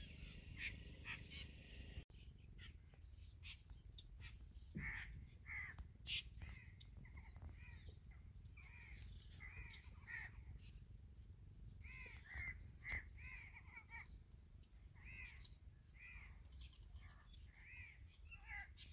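Birds calling faintly: many short, arched calls one after another over a low steady background rumble.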